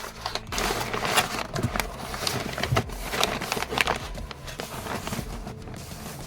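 Rustling and crackling of packaging being handled, with irregular taps and knocks.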